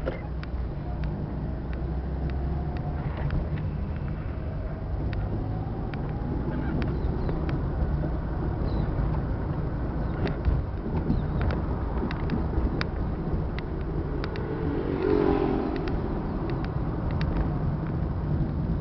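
Steady engine and road noise inside the cabin of a moving vehicle, with frequent small rattles and clicks. There is a brief louder swell about fifteen seconds in.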